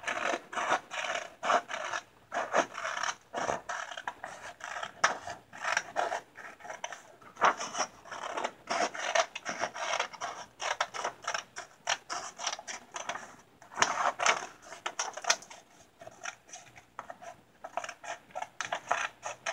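Scissors cutting a sheet of paper: a quick, irregular run of snips with the paper rustling as it is turned.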